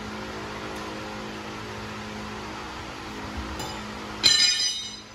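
A steel tire iron clangs about four seconds in, with a bright metallic ring that dies away within a second. Under it runs a steady low hum.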